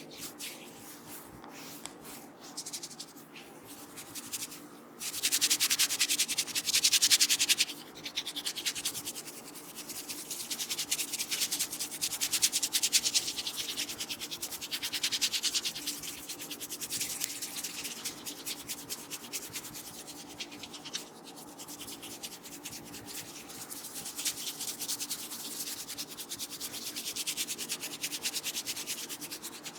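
Hands rubbing and scratching through hair on a scalp in a head massage: a fast, dense rustling, loudest about five to eight seconds in.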